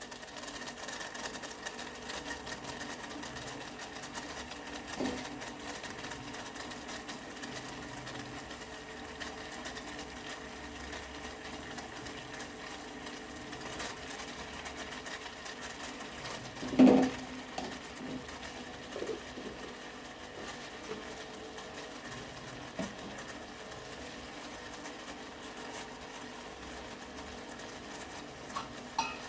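Tea simmering in a pan on a stove: a steady, fine rapid rattle of bubbling. About seventeen seconds in comes a single loud knock, with a few faint ticks scattered through.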